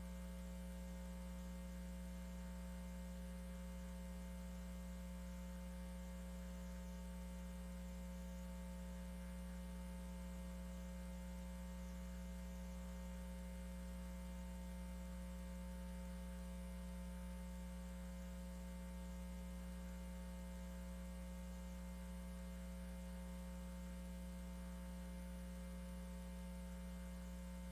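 Steady electrical mains hum: a set of constant tones, with no crowd noise or other sound over it.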